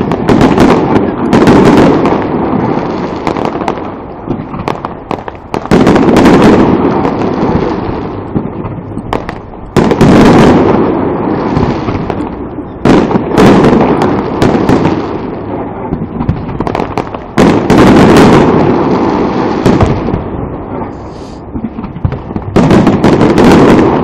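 Aerial fireworks shells bursting, a loud boom every few seconds, about six in all. Each is followed by a long rumbling decay that slowly fades.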